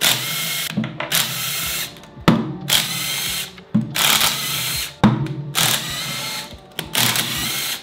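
Power tool running in about six short bursts, backing out bolts on a Subaru EJ205 engine block at the start of the teardown.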